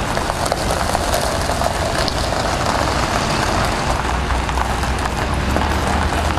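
A full-size van driving slowly past at close range, its low engine rumble growing louder about four seconds in as it comes alongside, over a steady din of street noise.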